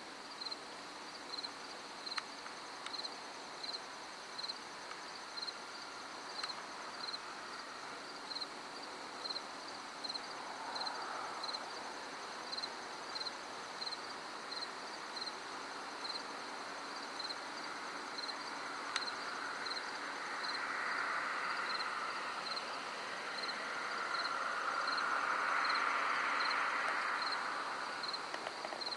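A cricket chirps steadily, about once a second, in a high, even rhythm. Over it a distant train horn rises faintly about a third of the way in, then swells louder near the end before fading, heard from far away.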